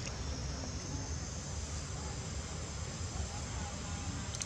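Steady outdoor background: a low rumble with a faint high insect hiss, and no clear monkey calls.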